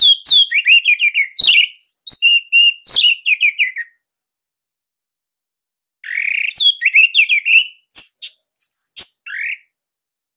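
Orange-headed thrush singing a loud, tight song of rapid chattering notes mixed with sharp high clicks, in two phrases with a pause of about two seconds between them.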